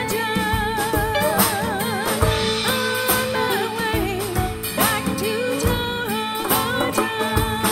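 Rock band playing, with a woman singing long, wavering notes over acoustic and electric guitars, electric bass, drum kit, congas and a hand shaker.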